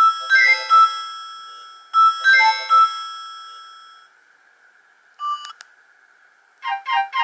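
Nokia 105 (2017) ringtones: a bell-like melodic phrase fades out about four seconds in, and a short beep sounds about five seconds in. Near the end the next ringtone starts with fast repeated notes.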